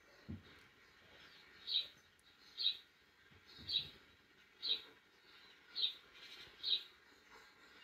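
Short high-pitched chirps repeating about once a second from the soundtrack of a television showing a video of a mouse. A soft low thump comes about a third of a second in.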